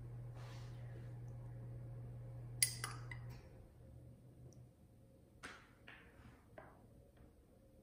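Quiet kitchen sounds: a metal spoon clinks sharply once against a glass mixing bowl, followed by a few softer taps as ingredients are spooned onto diced apple and brown sugar. A low steady hum runs under the first half and then stops.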